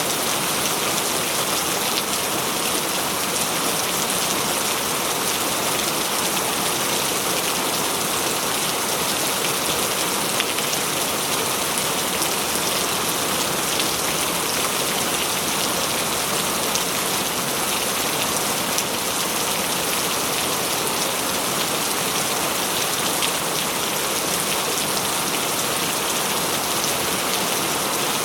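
Steady rain falling, an even hiss of many drops that keeps on without let-up.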